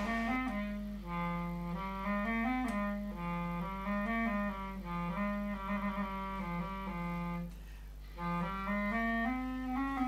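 Instrumental background music: a slow, single-line melody on a wind instrument, breaking off briefly about seven and a half seconds in.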